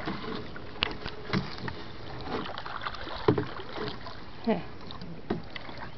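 Canoe being paddled: a steady wash of water with irregular knocks and taps of the paddles against the canoe, a handful of times.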